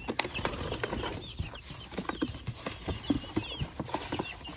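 Young chicks peeping over and over in short, high chirps, mixed with scattered light knocks and rustles.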